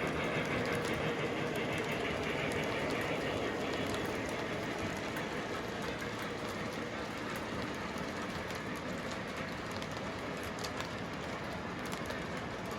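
Model train running on the layout track: a steady rolling rumble with a fine clatter of wheel clicks, easing off slightly toward the end.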